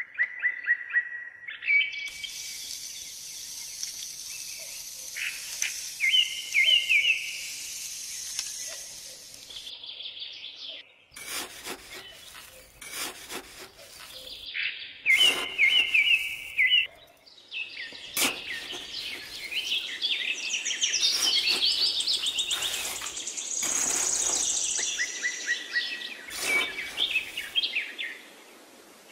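Small birds chirping and trilling in quick repeated phrases, with scattered light clicks and knocks through the second half.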